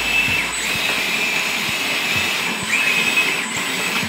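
Brushless hydraulic pump of a 1/12-scale metal RC Komatsu PC240 excavator whining in repeated runs as the boom and arm are worked. Each run rises quickly to a steady high whine and then drops away, about four times, over a steady hiss.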